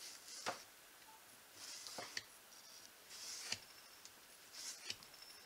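Carbon-steel Mercator knife blade cutting a rubber boot sole in short strokes, about four times: each a brief scrape that ends in a sharp click.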